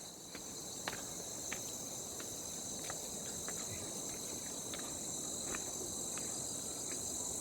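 Steady high-pitched drone of insects, with faint scattered ticks.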